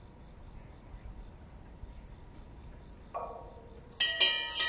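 Steady, faint chirring of insects such as crickets, with a low outdoor rumble. About four seconds in, a bell starts ringing loudly with quick repeated strikes.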